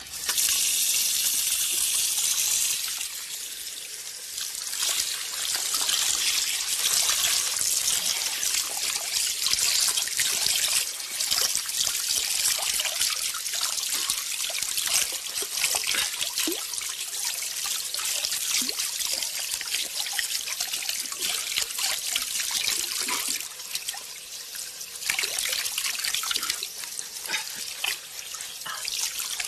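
Running water, a steady splashing trickle that starts suddenly, with a louder first few seconds and briefly eases twice.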